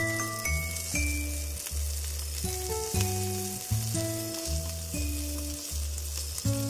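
Chicken wings, carrots and onions sizzling in a frying pan: a steady frying hiss under background music with a simple plucked or mallet-like tune.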